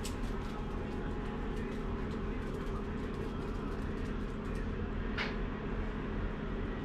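Steady low hum, with a short faint squeak or click about five seconds in.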